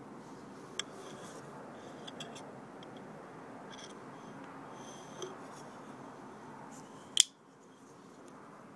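An IKBS flipper folding knife with a titanium and carbon-fibre handle being worked in the hand: scattered small metallic clicks from the blade and liner lock, and one sharp, much louder click about seven seconds in.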